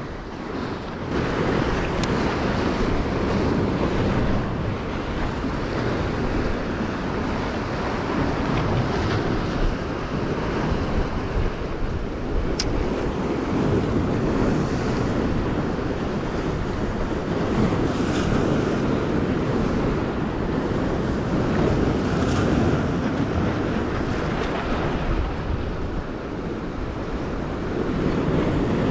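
Sea waves breaking and washing over the rocks of a jetty, a steady surf that swells and eases every few seconds, with wind buffeting the microphone.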